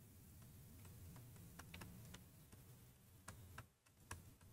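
Near silence, broken by a scattering of faint, irregular clicks from a stylus tapping and writing on a pen tablet.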